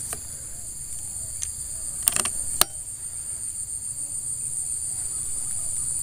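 Steady high-pitched buzzing of an insect chorus, with a short cluster of sharp clicks about two seconds in.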